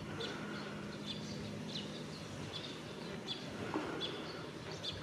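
Small birds chirping in the background, short high chirps two or three a second, over a steady outdoor background hum.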